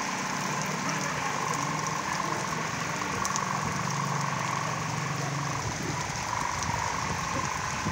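Heavy rain falling steadily, with a steady wavering high hum running through it and a low engine-like hum that stops a little before the end.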